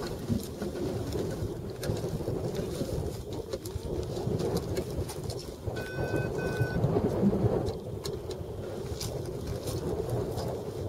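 Wind buffeting the microphone in a steady low rumble. About halfway through come two short electronic beeps, the first a little longer, from the flight instrument (variometer) clipped to the hang glider's upright.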